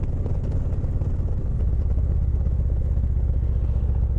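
Indian Chieftain motorcycle's V-twin engine running steadily under way, a low rumble whose note changes about a second and a half in.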